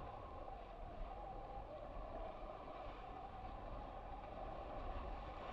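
Steady rush of wind and water past an RS600FF foiling dinghy sailing at about ten knots in strong wind, an even noise with no separate events.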